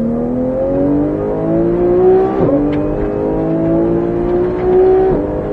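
Porsche 991 GT3's flat-six engine at full throttle, heard from inside the cabin, its pitch climbing steadily through each gear. It makes quick upshifts about two and a half seconds in and again near the end.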